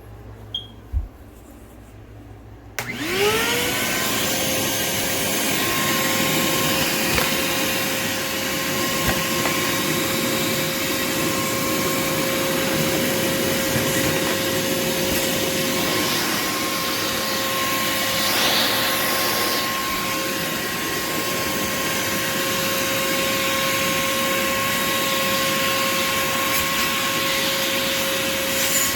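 A wet/dry shop vacuum switched on about three seconds in: its motor whines up to speed within a moment and then runs steadily, with a constant whine over the rush of air.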